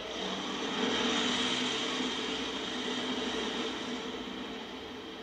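Dodge van engine running as the van drives away down the street, a little louder about a second in and fading toward the end, over a steady high whine.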